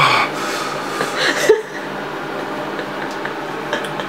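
A man groaning and breathing hard from the burn of a raw bird's eye chili he has just chewed: two short groans falling in pitch, one at the start and one about a second and a half in, then only a steady low hiss.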